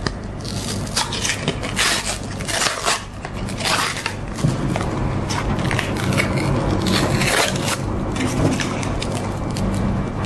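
Ice-cream cone wrapper crinkling and tearing as it is peeled off, in a run of sharp rustles that thin out about halfway, when a low steady hum comes in underneath.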